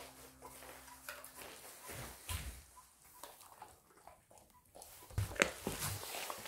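Golden retriever gnawing a raw duck back: faint, scattered crunches and clicks, thickest near the end. Background music fades out early on.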